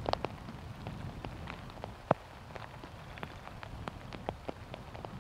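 Rain falling, with individual drops ticking irregularly close to the microphone, one sharper tick about two seconds in, over a low steady rumble.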